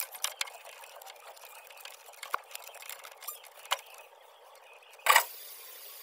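Scattered light clicks and rustles of old electrical wires being handled with gloved hands at a refrigerator compressor, with a brief louder noise about five seconds in.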